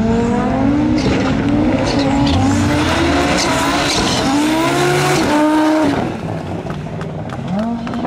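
Audi Sport Quattro S1 rally car's turbocharged five-cylinder engine revving hard in repeated bursts as it drifts on loose dirt, the pitch climbing and dropping with each press and lift of the throttle. It gets a little quieter near the end as the car pulls away.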